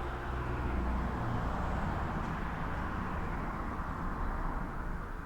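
Steady background rumble and hiss with no distinct events, swelling a little in the first second or two and easing off toward the end.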